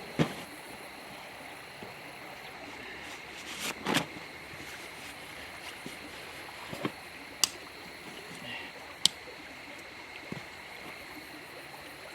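Steady rushing background noise, like running water, with faint steady high-pitched tones. Several short, sharp clicks and knocks are scattered through it, the strongest near the start, about four seconds in and about nine seconds in.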